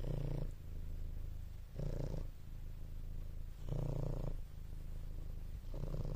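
Domestic cat purring steadily close to the microphone, the purr swelling louder about every two seconds.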